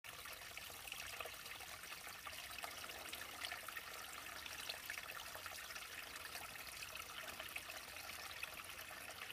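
Small forest stream trickling and babbling steadily.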